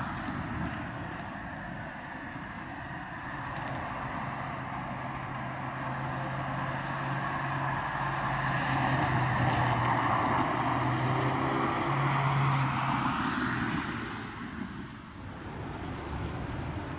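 A motor vehicle passing by: a low engine hum and tyre hiss build over several seconds, peak, and fade away about two-thirds of the way through.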